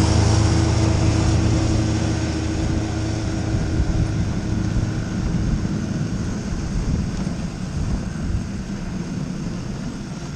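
A snowmobile engine running close by, then pulling away and fading out over the first half, leaving a steady rushing noise of the dog sled gliding over snow with wind.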